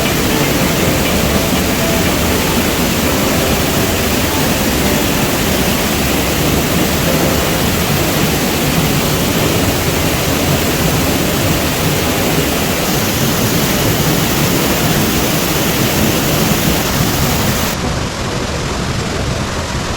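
Steinsdalfossen waterfall: a loud, steady rush of falling water. Near the end the sound suddenly loses its top and drops a little.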